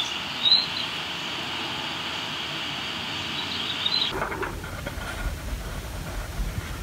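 Steady hiss of a large railway station hall's background noise, with a couple of faint high chirps. About four seconds in it cuts to a low rumbling background.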